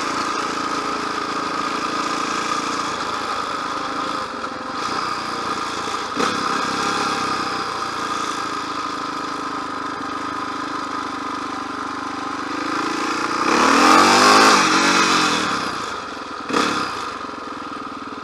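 Motorcycle engine running steadily while riding. About thirteen seconds in, it revs up to its loudest, then eases back off, with a brief rise again near the end.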